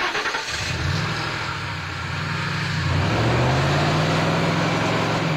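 Truck engine revving as the vehicle accelerates, its pitch climbing about a second in and again near the middle, with road and wind noise throughout.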